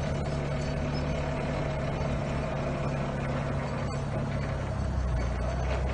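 Propane forklift's engine running steadily as the truck is driven slowly over gravel, a low hum that deepens slightly near the end.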